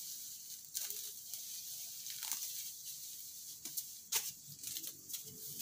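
Leaves and soil rustling and crackling as plants are handled and pulled by hand, with a few sharp snaps at irregular times, over a steady high hiss.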